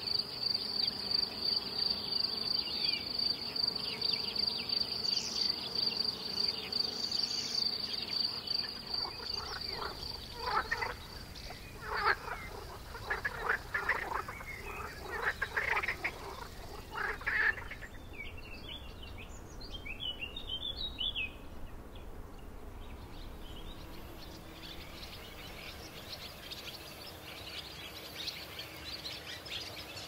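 A sequence of Mediterranean nature sounds. A steady, high, pulsing cricket trill comes first. About nine seconds in, a loud frog chorus takes over with repeated croaks for about eight seconds. It gives way to short songbird chirps and then a soft, even hiss with scattered bird calls.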